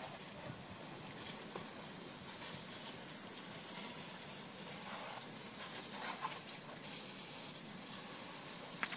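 Water spraying from a hose wand onto a motorcycle's front end and the wet grass below, a steady faint hiss, with a short sharp tick near the end.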